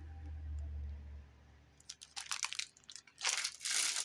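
Clear plastic packaging crinkling and rustling as it is handled. A low rumble in the first second, then crackly rustles from about two seconds in, loudest near the end.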